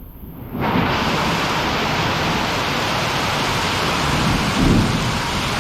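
Heavy rain pouring down in a thunderstorm, starting abruptly about half a second in and holding steady. A low rumble swells briefly near the end.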